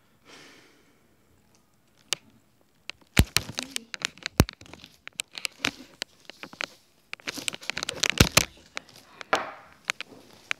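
Handling noise from the recording device being gripped and moved close to its microphone: a soft rustle, then crackling rubbing with many sharp clicks and knocks, loudest about three to four seconds in and again near eight seconds.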